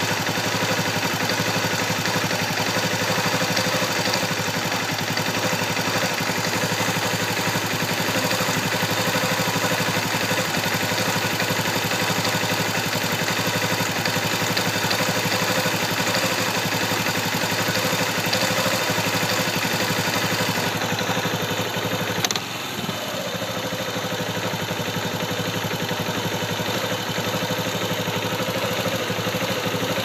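Air-cooled single-cylinder four-stroke engine of a 2004 Kawasaki Bayou ATV idling steadily, heard close up. The owner hears a light knock or slapping at idle that he cannot tell apart from the engine's normal high-compression sound or a fault; the timing chain is snug and the timing is set. About 22 seconds in there is one sharp click and the idle briefly dips.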